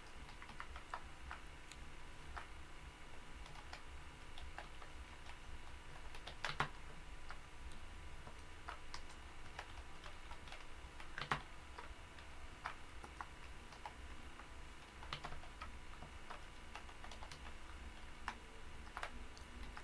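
Computer keyboard typing: scattered keystrokes at an irregular pace, with a couple of louder clicks, over a faint steady low hum.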